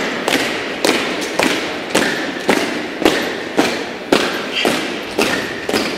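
Honour guard marching in step, boots striking a tiled church floor about twice a second, each step echoing.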